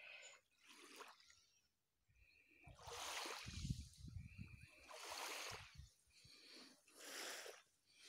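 Gentle small waves of a calm sea lapping softly onto a shelly sand shore, a faint wash about every two seconds, with a brief low rumble around the middle.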